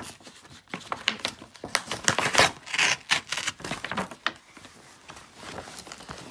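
Clear plastic window and cardboard of a doll's toy box crackling and crinkling as hands pull them apart. A quick run of clicks and rustles that thins out after about four seconds.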